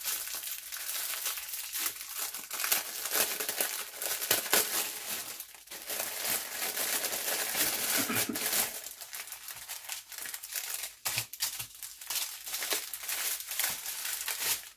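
Plastic bag and the small plastic packets of diamond-painting drills inside it crinkling as they are handled and unpacked. Dense, continuous crinkling for about the first nine seconds, then more scattered rustles.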